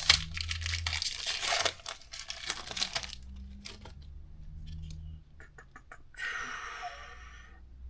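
Foil booster pack wrapper being torn open and crinkled for about three seconds, then a few light clicks and another short crinkle near the end.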